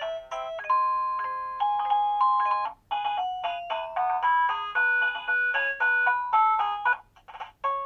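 Guudgo GD-MD01 wireless doorbell chime playing its built-in electronic melodies, one clear note after another. One tune stops about three seconds in and another starts, and there is a short break near the end before the next.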